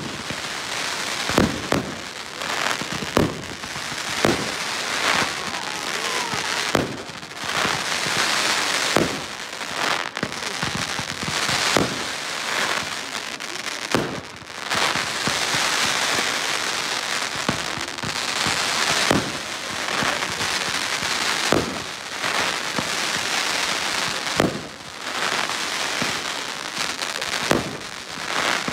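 Fireworks display: sharp bangs of bursting shells, roughly once a second, over a steady hiss and crackle from rising tails and crackling stars.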